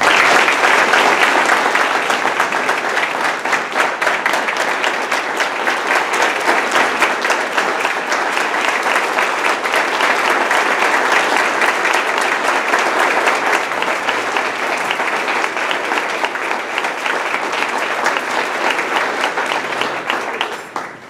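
Audience applauding: a long round of clapping that starts abruptly and dies away about twenty seconds in.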